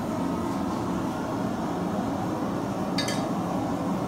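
Steady roar of a forge running while steel is reheated, with a single sharp metallic clink about three seconds in.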